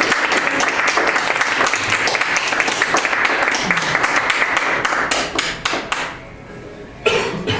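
Audience applauding: many hands clapping, dense and steady, then thinning out and dying away about six seconds in. A short, loud knock comes near the end.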